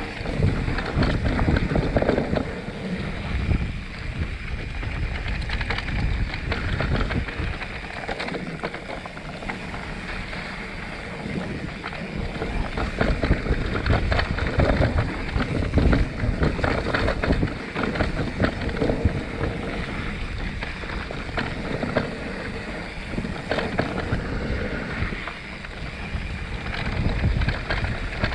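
Mountain bike rolling fast down a dirt forest singletrack: wind buffeting the microphone over the rumble of the tyres on dirt, with frequent knocks and rattles as the bike goes over bumps.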